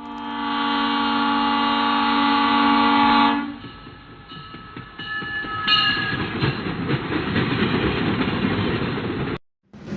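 A train horn sounds one long steady blast for about three and a half seconds, then gives way to the rumble and clatter of a train running, with a few short tones about five to six seconds in; the sound cuts off suddenly near the end.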